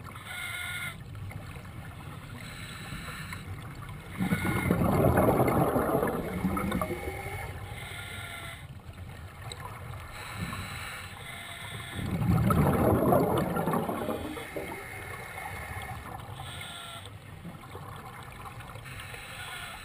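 A scuba diver breathing underwater through a regulator. Exhaled bubbles gurgle out in two long bursts about eight seconds apart, with quieter breathing between them.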